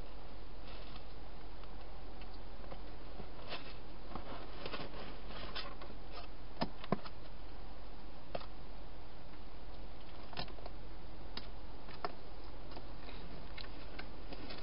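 A wild hedgehog moving about in a clear plastic box, making faint rustles and scattered sharp little clicks and taps. The two loudest clicks come close together about halfway through, over a steady low hum.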